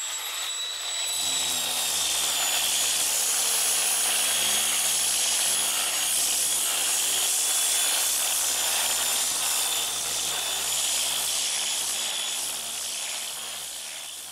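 A handheld power sander running against the car's steel body panel, taking off surface rust and feather-edging the spot. It gives a steady high whine over a hiss, coming up to full speed about a second in and fading near the end.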